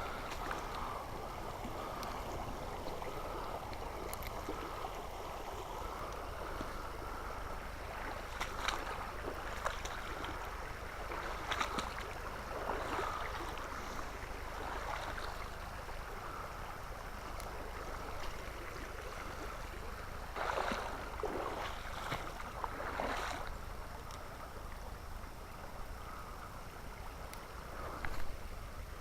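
Mountain creek water running steadily over rocks, with a few short, sharper sounds standing out now and then.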